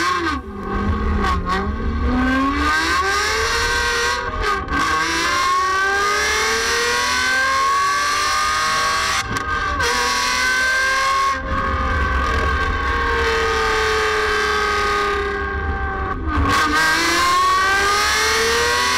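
Aston Martin DB9's V12 engine, fitted with equal-length headers, sports catalysts and a performance exhaust, heard close to the tailpipes as the car accelerates away. The revs climb in long sweeps, broken by a few short dips where it changes up a gear.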